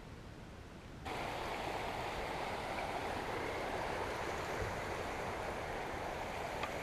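Steady rush of a stream's flowing water, cutting in abruptly about a second in.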